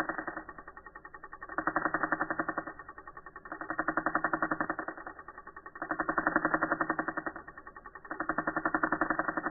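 Tattoo machine's buzz slowed down to a deep, rapid pulsing of about ten pulses a second. It swells louder and fades back roughly every two seconds as the needle works the colour in.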